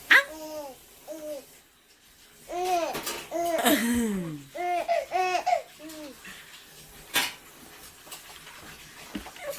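Young baby laughing in short, repeated squealing bursts, with a sharp knock at the start and another about seven seconds in.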